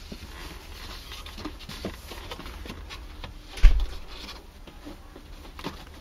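Plastic A-pillar trim cover being pressed into place, with light scattered clicks and taps and one louder knock about three and a half seconds in.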